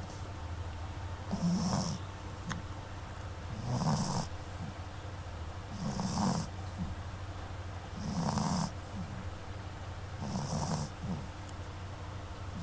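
A pet snoring in a slow, even rhythm: five snores about every two and a half seconds, each with a breathy hiss at its peak.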